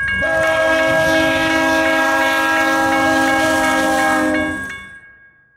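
Locomotive air horn sounding one long multi-note chord over the low rumble of a passing train, fading out near the end.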